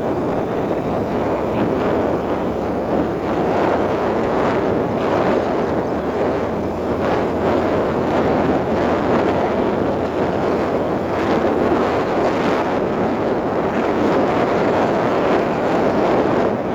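Steady rushing noise of wind on the microphone and a moving vehicle, loud and even throughout.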